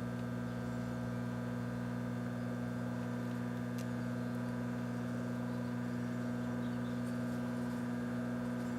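Microwave oven running, a steady electrical hum from its transformer and magnetron.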